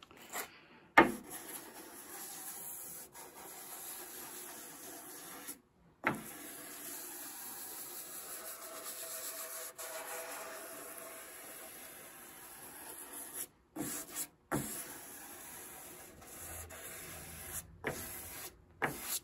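Sandpaper on a wooden sanding block rubbed by hand over the finished wooden case of an antique Chickering grand piano: a steady, scratchy back-and-forth rubbing, stopping briefly a few times. It is the finish being sanded flat between coats of polish. A sharp knock about a second in is the loudest sound, with a smaller one about six seconds in.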